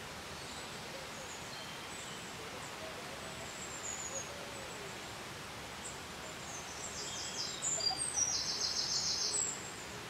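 Waterfall cascade rushing with a steady hiss of falling water. Small birds chirp over it, with a quick run of high repeated notes from about seven to nine and a half seconds in.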